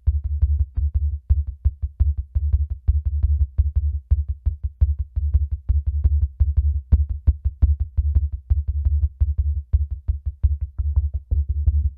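Downtempo electronic instrumental music: a fast, even drum-machine pulse over a deep, throbbing synth bass, with faint held synth tones above.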